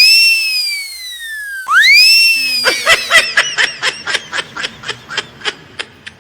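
A high whistle-like tone that leaps up and then slides slowly down, heard twice, followed by a fast run of short squeaky chirps, several a second, that fade toward the end.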